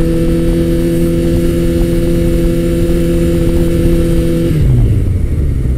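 Motorcycle engine running at a steady note under wind rush, then the note drops in pitch about four and a half seconds in.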